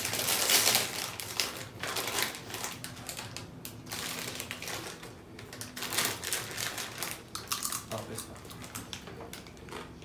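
Foil snack bag of cassava chips being torn open and rustled, with sharp crinkling that is loudest in the first second, then irregular crinkling and crunching as a hand reaches in and the chips are eaten.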